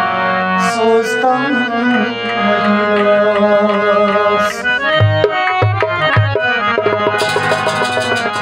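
Naat sung by a male voice with hand-drum accompaniment over sustained instrumental notes. About five seconds in the drumming turns busier, with a few deep bass strokes followed by a quick run of strokes near the end.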